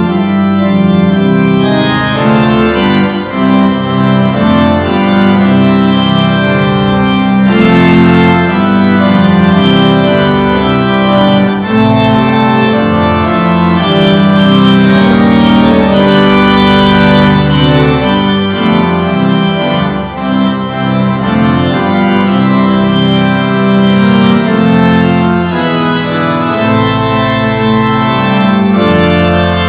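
Organ music: steady held chords on an organ, changing every second or so.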